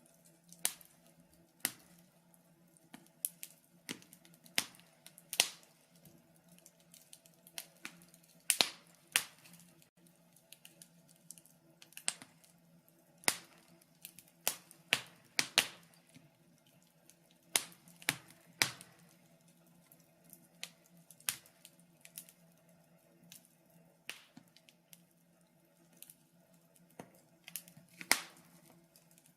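Wood fire crackling: sharp pops and snaps at irregular intervals, a few every couple of seconds with some much louder than others, over a faint steady hum.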